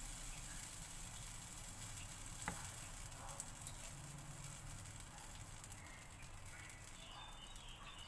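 Pancake batter sizzling in a hot stainless steel frying pan as it is poured in, a steady soft hiss. A single sharp click about two and a half seconds in.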